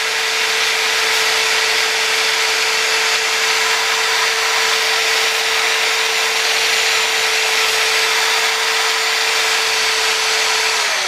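Handheld electric rotary sanding tool running steadily at high speed, a constant whine with a dense hiss as it sands the powder coating off a motorcycle wheel hub. Near the end the motor winds down.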